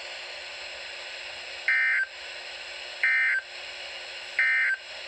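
Three short SAME data bursts from NOAA Weather Radio, about 1.3 seconds apart, each a buzzy two-tone warble, over a steady hiss of radio reception. They are the EAS end-of-message code that closes the tornado watch broadcast.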